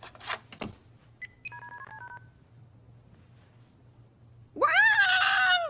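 Cordless phone handled and its keypad dialed: a few clicks, then a quick run of short push-button beeps. Near the end, a loud high-pitched whining sound starts suddenly and holds.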